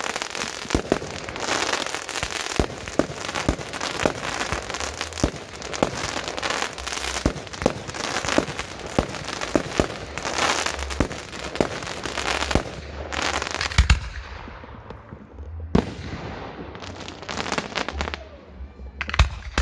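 Fireworks display: mortar-launched shells firing and bursting in quick succession over dense crackling. After about twelve seconds it thins out to a few separate loud bangs.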